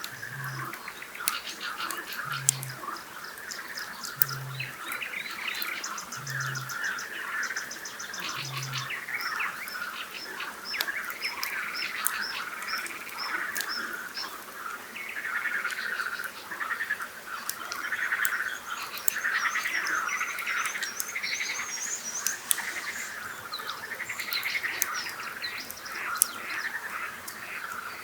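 Frogs croaking in a dense, continuous chorus. Over the first nine seconds a Eurasian bittern booms five times, low and about two seconds apart. High bird trills and the sharp pops of a crackling campfire come through as well.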